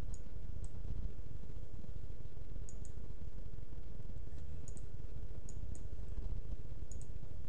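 A computer mouse clicking, faint ticks a few times, some in quick pairs, over a steady low background hum.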